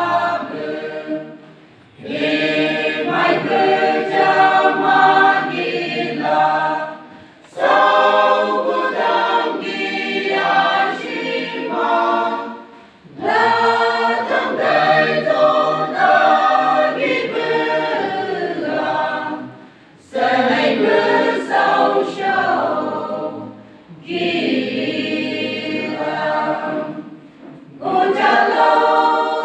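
Mixed church choir of men's and women's voices singing in parts under a conductor, phrase by phrase with short pauses between lines.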